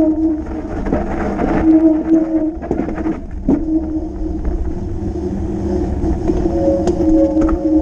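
Fat bike's wide knobby tyres rolling fast on a paved and gravel lane, giving a steady hum that shifts slightly in pitch about two-thirds of the way through, under a low wind rumble on the microphone. Rattles and scrapes come over rougher ground in the first few seconds.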